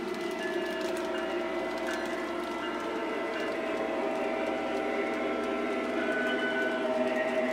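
Lionel O-gauge model train running along the track: a steady electric-motor and gear hum with several held tones, faint wheel clicks and an occasional brief higher squeal.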